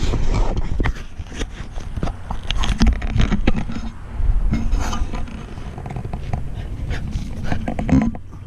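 Handling noise on a handheld camera's microphone: a steady low rumble with many scattered clicks, rubs and scrapes. Small dogs move about close by at a welded wire fence.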